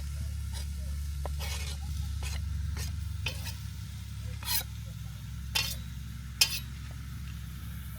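Diced chicken and chorizo sizzling as they brown in a pot on a camp stove, with a utensil scraping and stirring through them about ten times; the sharpest scrape comes about six and a half seconds in. A steady low rumble runs underneath.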